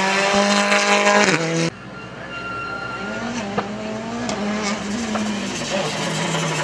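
Turbocharged rally car engines at speed. First a Ford Fiesta rally car passes close at high, steady revs, and its engine note drops as it lifts off. Then, after an abrupt change, a Citroën DS3 rally car is heard further off, its engine rising and falling through the gears, with a single sharp pop about three and a half seconds in.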